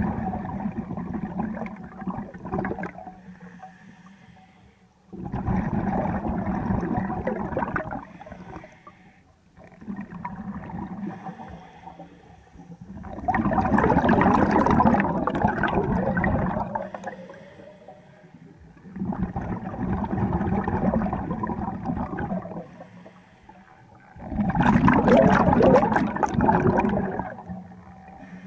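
Scuba diver breathing underwater through a regulator: exhaled bubbles rush out in six bursts of two to four seconds, about every five seconds, with quieter inhalations between them. A faint steady low hum runs underneath.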